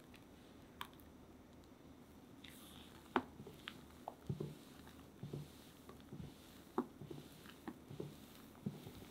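Spatula folding sponge-cake batter in a glass bowl: soft squishy sounds of the thick batter with scattered sharp ticks where the spatula knocks against the glass, starting about three seconds in.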